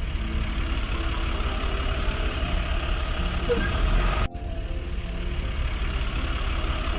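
Heavy construction-vehicle engine sound effect: a steady diesel rumble that cuts out for an instant about four seconds in and starts again.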